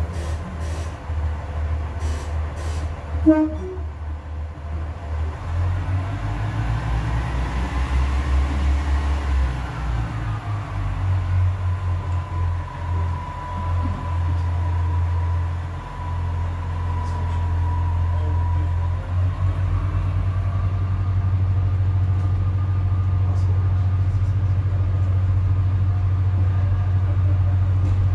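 Diesel engine of a British Rail Class 142 Pacer railbus, heard from inside the carriage, running with a steady low drone. The engine opens up about six seconds in as the unit pulls away, with a faint whine that rises and falls. A short, loud tone sounds about three seconds in.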